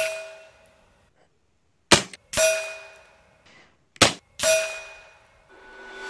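FX Monsoon .22 regulated semi-automatic PCP air rifle fired twice, about two seconds apart, each sharp crack followed about half a second later by the pellet hitting the steel behind the target, which pings with a clear ringing tone that dies away over about a second. The ring of the previous hit is fading at the start, and another ringing swells near the end and stops suddenly.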